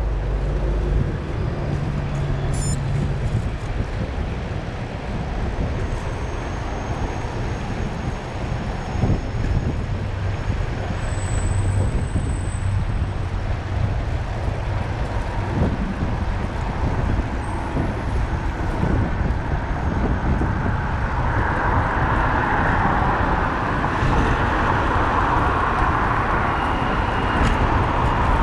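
City road traffic heard from a moving bicycle: a steady rush of traffic and riding noise with a low rumble, swelling louder about two-thirds of the way in.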